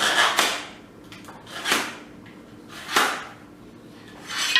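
A utility knife blade drawn along a vinyl floor plank to score it, in four separate scraping strokes.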